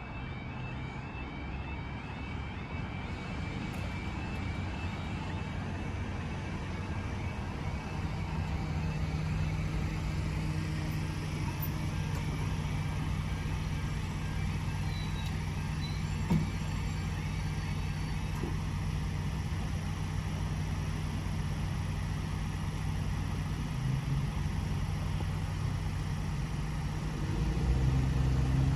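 Level crossing warning alarm warbling in a repeating two-tone pattern for the first few seconds as the barriers start to lower. Then a vehicle engine idles at the crossing with a steady low hum, growing louder near the end.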